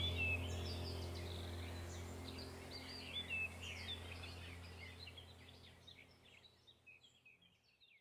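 Songbirds chirping and singing over a deep, steady drone of background music. Both fade out steadily toward silence.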